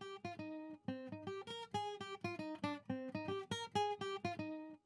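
Background music: an acoustic guitar picking a quick melody of plucked notes, several a second, each ringing briefly and dying away.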